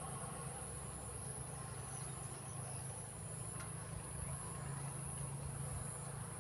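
Steady high-pitched insect chirring with a low hum beneath it, and a distant church bell struck once a little past halfway, its ring fading faintly.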